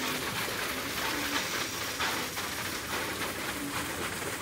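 Steady hiss of falling water drops spattering on wet pavement and inflatable plastic.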